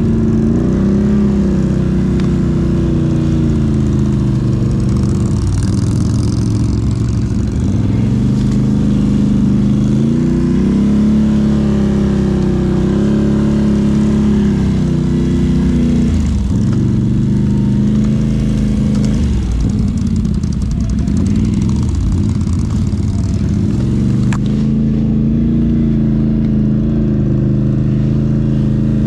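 Can-Am ATV's V-twin engine running under load in deep snow. Its pitch rises and falls again and again as the throttle is opened and eased off.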